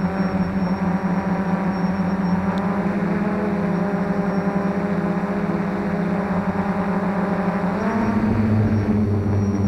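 F450 quadcopter's electric motors and propellers humming steadily. The pitch rises a step about eight seconds in and holds there.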